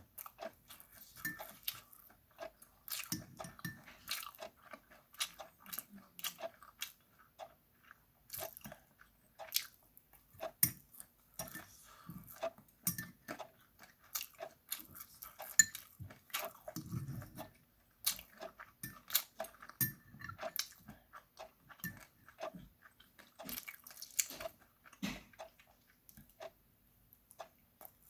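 Close-up eating sounds: irregular chewing and crunching of charcoal-grilled chicken feet with rice, with occasional clicks of utensils against the bowl.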